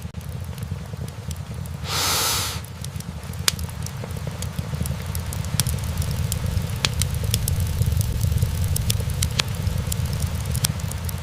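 Wood-burning fireplace: logs crackling with frequent sharp pops over a steady low rumble of the flames, and a brief hiss about two seconds in.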